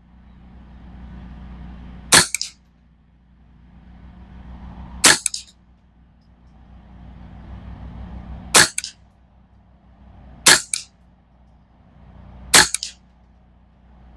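Five single shots from a Ruger 10/22 semi-automatic .22 LR rifle firing RWS Target Rifle ammunition, spaced about two to three and a half seconds apart, each with a second, smaller crack a fraction of a second later. A faint hiss builds up in the gaps between shots.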